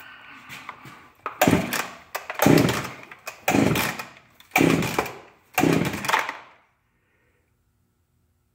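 Echo CS-680 two-stroke chainsaw being pull-started: five hard yanks on the starter cord in quick succession, each about a second long, the engine cranking over without catching to run.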